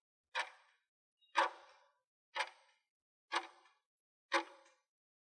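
Countdown timer sound effect ticking like a clock, one short sharp tick each second, five ticks in all.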